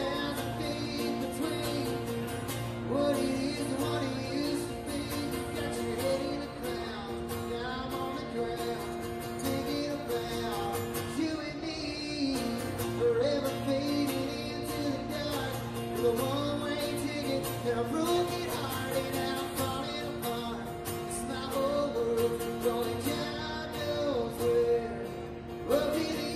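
A band's original song: singing over guitar and steady held chords.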